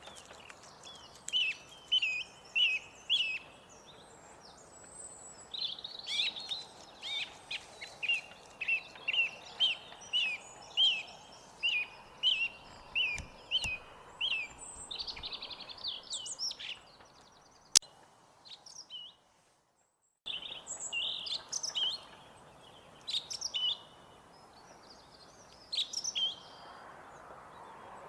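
Song thrush singing, with short whistled phrases that are each repeated several times in quick succession over a faint background hiss. About two-thirds of the way through, a sharp click is followed by a couple of seconds of dead silence, then the singing resumes.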